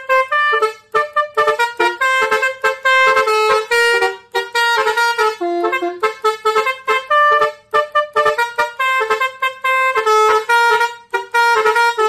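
Basuri musical air horn, a multi-tone vehicle air horn, playing a quick tune of short honking notes that step up and down in pitch.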